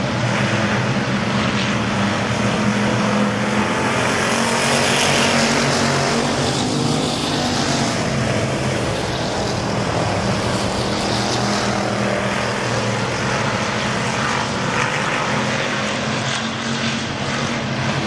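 A field of dirt-track stock cars racing at speed, their engines running hard together in a loud, steady drone that swells a little as the pack passes.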